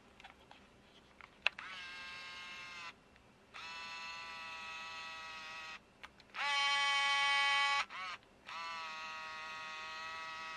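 Minolta Vectis 20 APS camera's built-in electric motor whining in separate runs: four main runs of one to two seconds each, every one starting with a brief rise in pitch, the third the loudest, with a very short blip just before the last.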